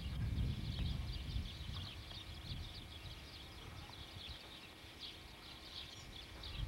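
Many small birds chirping continuously in a high, busy chatter, over a low rumble on the microphone that is loudest at the start and fades within about two seconds.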